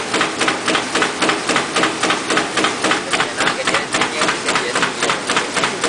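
Automatic paper cup fan cutting machine running, cutting fan-shaped blanks with a loud, regular clatter of about four strokes a second over its steady running noise.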